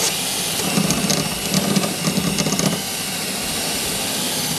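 Power drill running steadily under load, its bit drilling out rivets in a snowmobile's metal running board, with a faint whine over the cutting noise.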